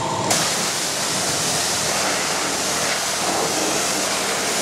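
High-pressure washer wand spraying water onto a combine harvester: a steady loud hiss of the jet. It starts abruptly a moment in, as a machine hum cuts off.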